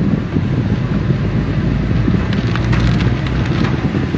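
Steady low rumble with a dense crackle, heard inside a car driving through heavy rain: rain drumming on the car body, with tyre noise on the flooded road.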